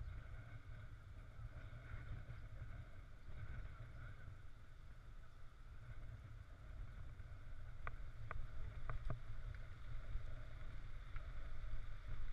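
Wind buffeting the microphone of a helmet-mounted camera on a moving mountain bike, a steady low rumble, with a few sharp clicks about eight to nine seconds in.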